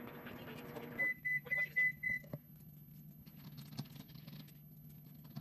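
A kitchen appliance's running hum stops about a second in and its electronic timer beeps five times in quick succession, signalling that the heating cycle is done. A fainter low hum and a few small clicks follow.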